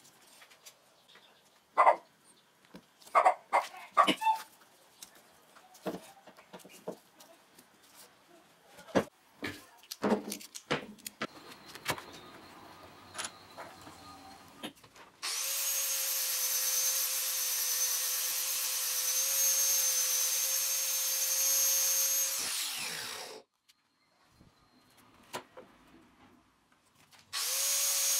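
Scattered knocks and clicks as the knife is handled and set in a bench vise. Then an angle grinder with an abrasive disc runs steadily for about eight seconds, shaping the knife's wooden handle, and winds down to a stop. It starts up again near the end.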